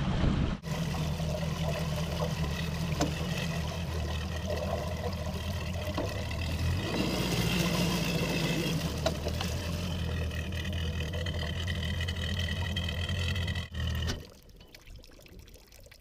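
Mercury Pro XS V8 four-stroke outboard running: briefly at speed, then a steady low-speed hum that shifts a little partway through. The engine sound drops away suddenly near the end.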